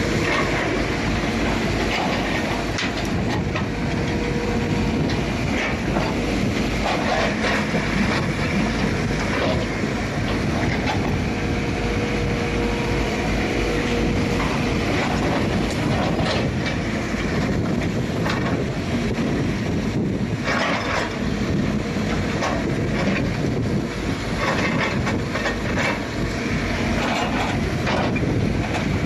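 Excavator diesel engine running under load, with the grapple clattering, knocking and scraping through a pile of waste. The knocks come irregularly, several a second at times, over the steady engine noise.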